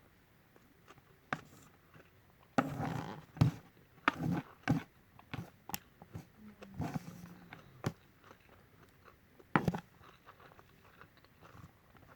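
Close-up eating sounds of Peyung-style instant yakisoba noodles: irregular bursts of chewing and wet mouth noises with sharp clicks, the loudest clusters a few seconds in and again near the end.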